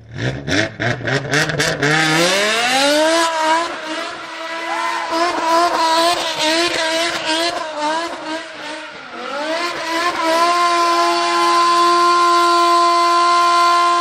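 BMW M5 E60's S85 5.0-litre V10 revving hard while the car spins donuts, with the rear tyres squealing in a steady hiss. The engine bursts in suddenly and its pitch climbs over the first few seconds, then rises and falls through the middle. For the last few seconds it holds steady at high revs.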